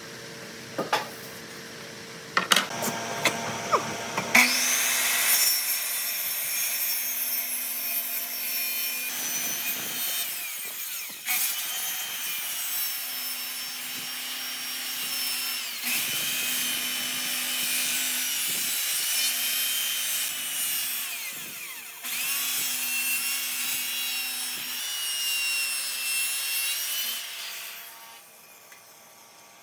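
A power tool working wood: a high motor whine over a rasping noise, in long passes broken by brief dips, starting about four seconds in after a few knocks and stopping shortly before the end.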